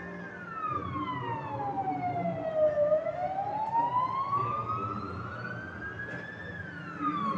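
A siren wailing slowly: its pitch falls for about three seconds, climbs back for about three and a half, then falls again, over a low background rumble.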